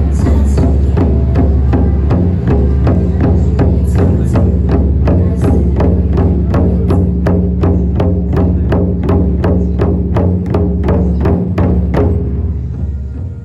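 Ensemble of large barrel drums, with one big drum on a tall stand, beating a steady even pulse of about four strokes a second over a steady low drone. The playing eases off slightly near the end.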